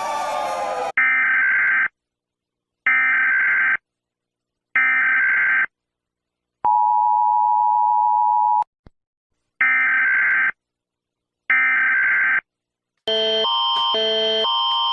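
Emergency Alert System broadcast tones: three harsh digital data bursts about a second long each, a two-second steady two-note attention tone, then two more data bursts. Before the bursts the tail of a gliding siren dies out about a second in, and near the end a different alarm starts, a fast repeating pattern of beeps on several notes.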